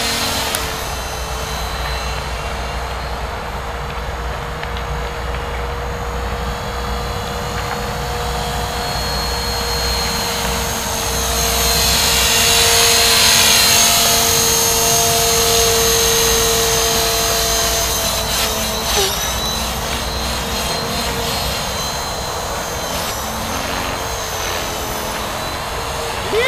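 Blade 450 3D electric RC helicopter in flight: the steady whine of its brushless motor over the swish of the rotor blades, growing louder for several seconds around the middle.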